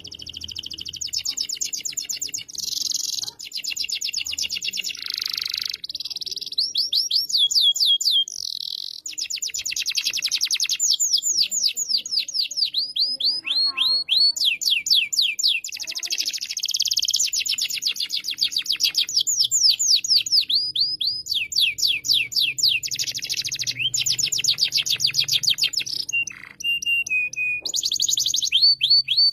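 Domestic canary in full song: a long, almost unbroken run of high, rapid trills, each phrase a fast string of repeated notes, some sliding down in pitch, changing to a new phrase every second or two with only short breaks.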